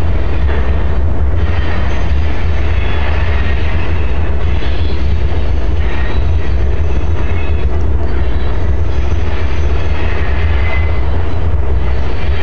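Heavy wind buffeting the microphone over a slow freight train rolling across a steel truss bridge, with short wheel squeals now and then.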